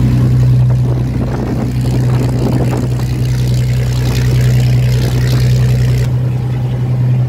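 Fishing boat's inboard engine running at a steady cruising drone while its bow wave rushes and splashes along the wooden hull. The rush of water drops away about six seconds in, leaving mostly the engine.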